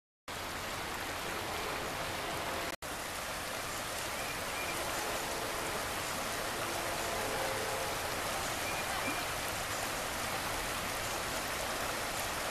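Shallow river riffle: water rushing and babbling over rocks as a steady hiss, broken off for an instant about three seconds in.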